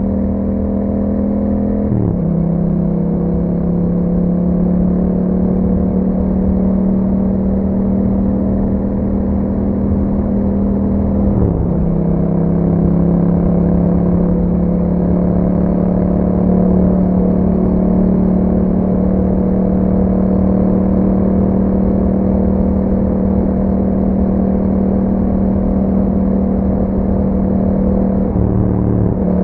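2021 Yamaha MT-07's parallel-twin engine running through an Akrapovic exhaust while riding at a steady pace. The pitch dips and settles lower at about two seconds and again near the middle, as with upshifts, then slowly climbs.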